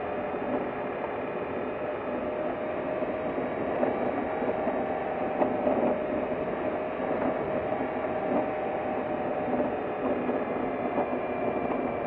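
Vehicle driving over a rutted dirt and gravel road: a steady mechanical hum with rattling and a few small knocks.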